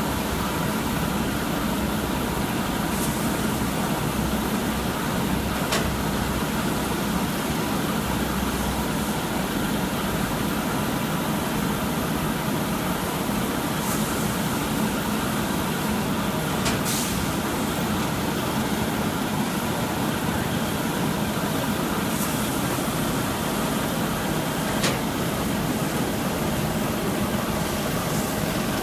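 Steady running noise of an automatic salt bagging line (packing scale and belt conveyor), with a low hum and a few short sharp clicks scattered through.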